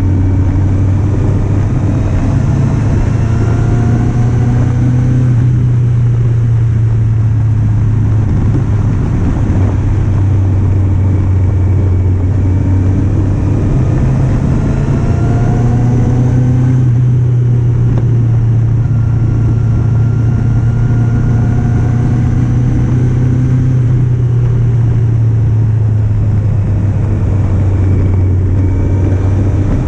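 Kawasaki Z750's inline-four engine running under way, its pitch rising under throttle and dropping back several times, over a steady low rush.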